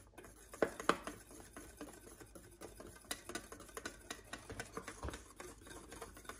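Wire whisk stirring a dry flour and cornstarch mix in a small bowl: a quick, irregular run of light ticks and scrapes as the wires hit the bowl, with a couple of louder clicks about a second in.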